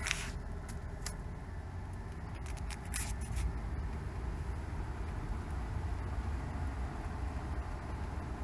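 Car's engine and road rumble heard from inside the cabin while driving through a flooded street, steady and low. A few short hissy bursts stand out right at the start, about a second in, and around three seconds in.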